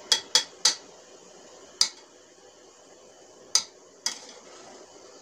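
A metal spoon clinking against the rim of an open aluminium pressure cooker: three quick clinks, then one, then two more.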